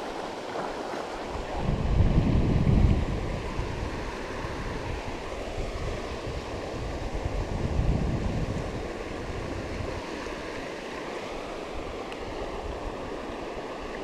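Rushing mountain stream water, a steady wash, with wind buffeting the microphone in two gusts, about two seconds in and again about eight seconds in.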